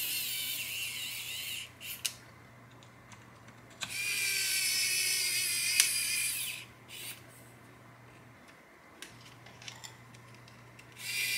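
Electric precision screwdriver running in short bursts with a high whine as it drives small screws into the drone frame. One burst stops about two seconds in, a second runs for about three seconds in the middle, and a third starts near the end, with quiet gaps and a few light clicks between.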